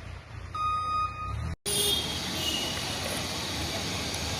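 A low steady hum with a short electronic-sounding tone about half a second in, then an abrupt cut to steady street noise from vehicle traffic with brief high-pitched tones in it.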